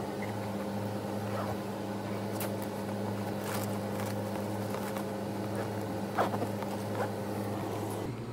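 A steady low machine hum, like a running fan or household appliance, with a few light clicks and rustles as a fabric backpack is handled.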